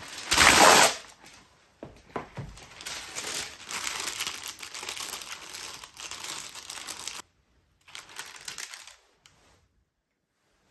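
A sheet of baking paper torn off with one loud rip about half a second in, then crinkling and rustling as it is pressed and folded into a molded pulp takeout box, with a shorter crinkle near the end as a cake slice is set on it.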